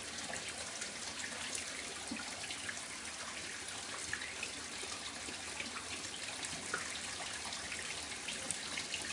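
Bathtub faucet running, a steady stream of water splashing into the tub.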